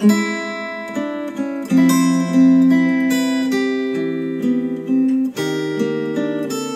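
Acoustic guitar music, chords plucked and strummed with new chords struck near the start, near two seconds and again past five seconds. It is played back through KEF R3 bookshelf speakers driven by a Marantz PM7000N integrated amplifier.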